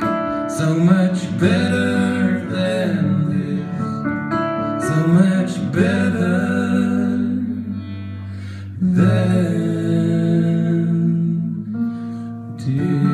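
Live acoustic song: a singer's voice over an acoustic guitar and a Nord Stage keyboard playing piano, with long held sung notes.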